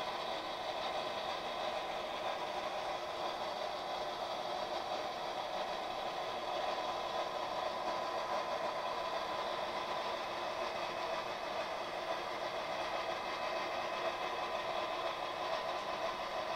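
HO-scale model diesel locomotives running slowly along the layout track: a steady mechanical hum with a thin, even whine through it.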